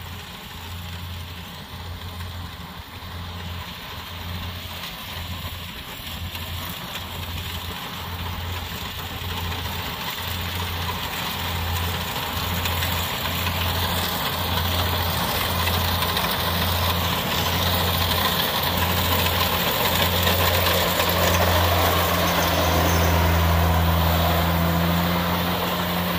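Kubota DC-70 Plus rice combine harvester running under load while cutting and threshing rice, its diesel engine a low hum that pulses about once a second, with rattling machine noise above it. It grows louder as the harvester draws near.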